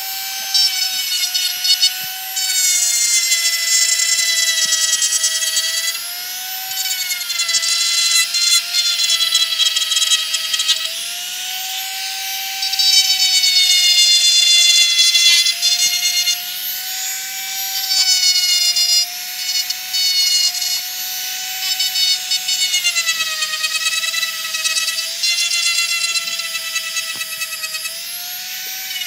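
High-speed rotary tool with a grinding stone grinding down a toy car body: a steady high-pitched motor whine whose pitch repeatedly dips and recovers as the stone bites into the piece.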